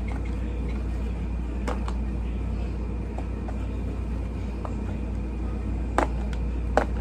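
A steady low rumble with a few light clicks and knocks, two sharper ones near the end.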